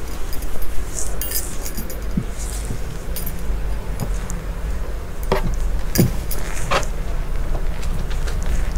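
Handling of cotton t-shirts on a wooden table: soft cloth rustling with a handful of sharp light clicks and clinks, over a steady low background hum.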